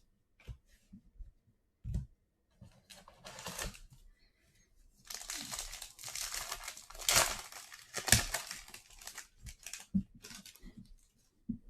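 A foil trading-card pack wrapper being torn open and crinkled by hand, with a few light clicks and handling noises before the longest rustle.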